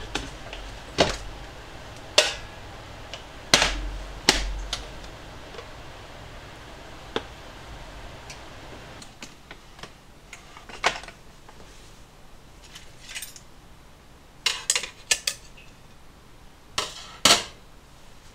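Irregular clunks and clicks of kitchen equipment being handled: a metal pot set into a cooker's outer housing with a couple of dull thumps, then the lid and pan of a bread maker being handled, with a quick cluster of clicks near the end.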